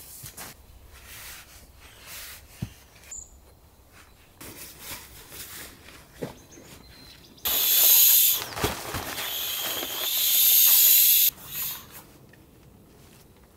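Footsteps and rustling on leaf litter, then, about seven seconds in, a loud hiss for nearly four seconds: air rushing out of a Therm-a-Rest sleeping pad's opened valve as it is deflated.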